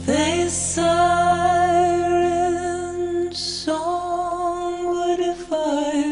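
Slow, gentle song: a female voice holding long, slightly wavering notes over a soft accompaniment.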